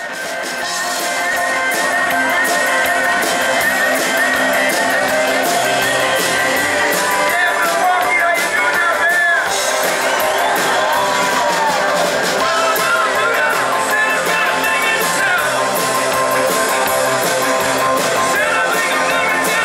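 Live rock band playing, with guitars and a voice singing, fading in at the start and then holding at a steady level.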